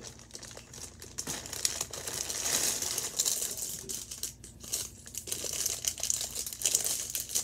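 Plastic packaging bags crinkling and rustling as they are handled and pulled open by hand, irregular and loudest about two to three seconds in.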